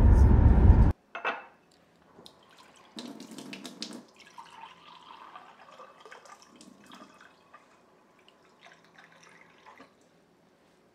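Steady road noise from a moving car for about the first second, cut off sharply. Then a kitchen tap runs briefly, for about a second, followed by faint clinks and handling sounds.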